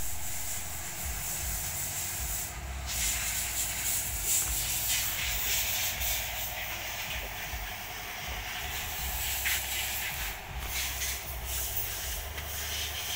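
Steady hissing background noise with an uneven low rumble.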